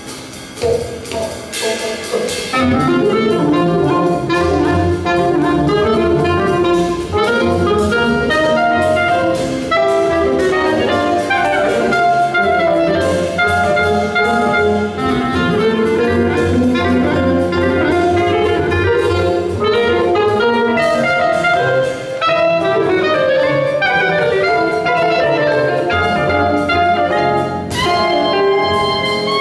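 Live gypsy-jazz band of clarinet, acoustic guitar, double bass, drum kit and keyboard playing a jazz tune. The drums play alone for the first couple of seconds, then the whole band comes in together.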